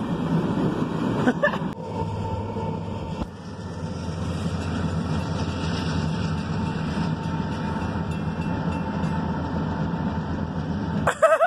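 Steady low rumble of idling vehicle engines, heard from inside a car's cabin. A faint, steady high ringing tone runs through it, from the railroad crossing bell sounding with the barrier arms down.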